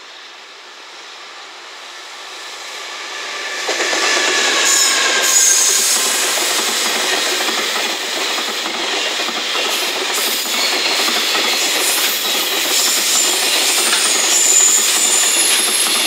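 JR Freight EF210 electric locomotive hauling a container train through a station. The sound grows over the first four seconds as the locomotive draws close, with a faint falling whine. Then the container wagons roll past with a loud, steady rumble and clatter of wheels over the rail joints, with brief high wheel squeals about five seconds in and again near the end.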